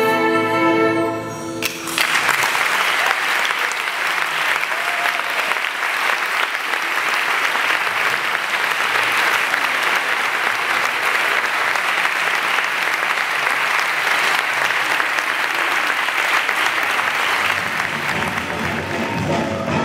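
The big band's final held chord cuts off about two seconds in, and the audience applauds steadily. The band starts playing again right at the end.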